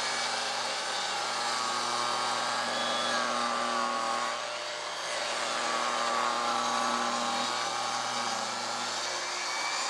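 Table saw ripping a pine board into a 2x4. The blade's whine wavers and sags under load, dipping about halfway through before it picks up again.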